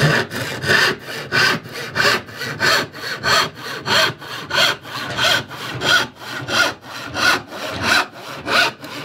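Hand saw cutting through an oak board with steady back-and-forth strokes, about three every two seconds. The saw is sharp and cuts in quickly.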